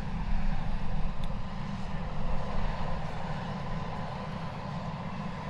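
John Deere 9660STS combine running steadily while harvesting soybeans: a low rumble with a faint steady whine over it.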